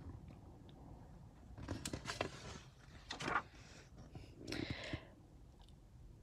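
Pages of a glossy picture book being handled and turned: a few soft paper rustles and swishes, about two, three and four and a half seconds in.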